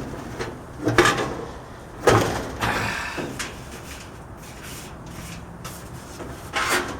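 Dryer drum being slipped back into the cabinet onto its rear bearing and front glides: a few knocks and scrapes of metal in the first three seconds or so, then quieter rubbing as it settles in.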